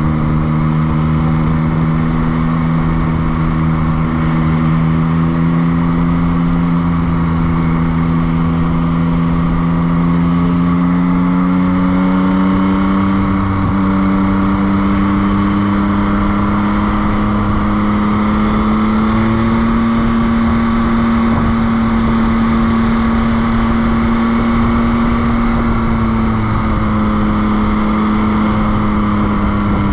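Motorcycle engine running steadily under way, its pitch climbing slowly as it accelerates for about twenty seconds, then falling a few seconds before the end as the throttle eases or it shifts gear. A steady rush of noise runs under the engine throughout.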